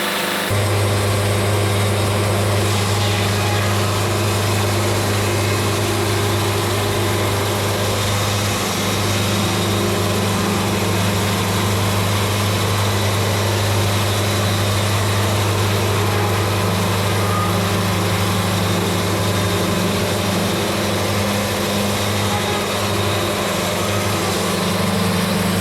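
An engine running at a steady, unchanging speed with a deep, even hum. It cuts in abruptly just after the start and cuts off abruptly at the end.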